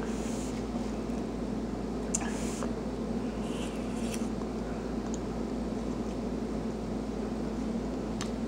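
Steady low room hum, like building ventilation, with a few faint, brief clicks and rustles of someone eating with a fork and chewing.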